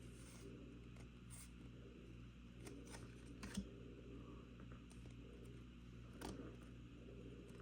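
Faint clicks and light rustles of trading cards being handled and flipped through, a few scattered ticks over a low steady hum.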